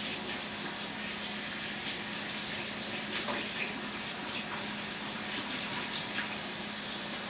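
Steady background noise: an even hiss with a low steady hum, and a few faint ticks.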